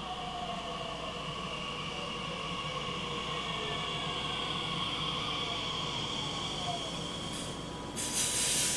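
Bombardier Talent 2 (DB class 442) electric multiple unit braking into a station, its traction drive whining in slowly falling tones over a steady rolling rumble as it slows. About eight seconds in there is a short, loud hiss.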